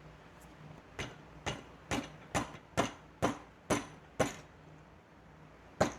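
Snap-on 1/4-inch ratchet clicking slowly, about eight sharp ticks roughly two a second, then one more near the end.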